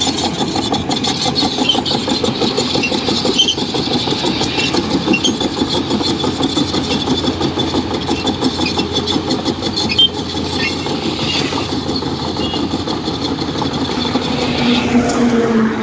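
Kobelco excavator's diesel engine running steadily with a throbbing note, its pitch rising briefly near the end.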